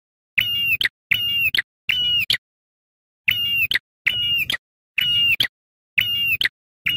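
Ashy tailorbird (prenjak kepala merah) calling loudly. It gives a short, clear, high note ending in a quick upward flick, eight times over: three in quick succession, then after a pause of about a second, five more. The gaps between calls are cut to dead silence, as on an edited master recording.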